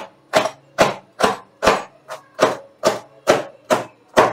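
Chef's knife chopping cabbage finely on a wooden cutting board: a steady, even rhythm of sharp chops, a little over two a second, the blade knocking on the wood at each stroke.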